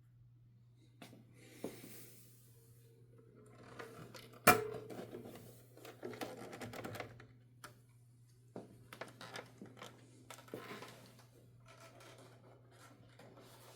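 1969 Adler J5 manual typewriter being handled and worked: irregular mechanical clicks and clacks, with one loud, sharp clack about four and a half seconds in and a few brief rasping sounds between them.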